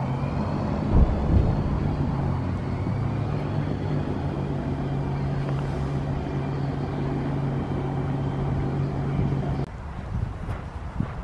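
Motor engine running steadily, a low even hum that cuts off suddenly near the end, with a couple of low thumps about a second in.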